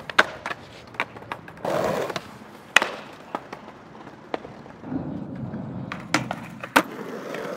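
Skateboards on concrete and pavement: wheels rolling, with a series of sharp clacks and knocks from the boards hitting the ground during tricks. A steadier stretch of wheel roll runs through the last part.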